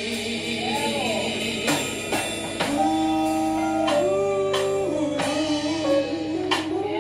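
Gospel music: singing with long held notes over guitar and drums, with occasional sharp drum hits.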